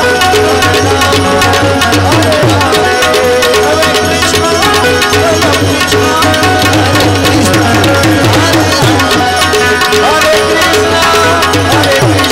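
Tabla played fast in an instrumental passage of live devotional music, its bass strokes repeatedly sliding down in pitch, over steady sustained melody notes.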